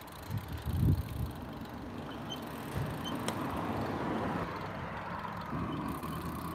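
Bicycle rolling along an asphalt street: a steady rolling noise with a few low knocks in the first second.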